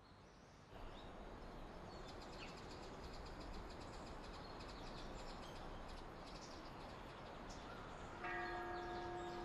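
Faint outdoor natural ambience: a steady hiss with faint high chirping. About eight seconds in, a steady pitched tone with overtones sets in and holds.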